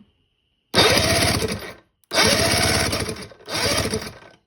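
Electric starter cranking a 50 hp Force outboard motor with its spark plugs out, in three bursts of about a second each with short pauses between. The engine spins over freely without firing, a sign that it is not seized.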